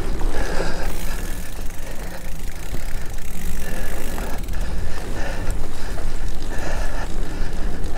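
Mountain bike riding along a dirt and pine-needle singletrack: a steady rumble of knobby tyres rolling on the trail, with the bike rattling over the bumps.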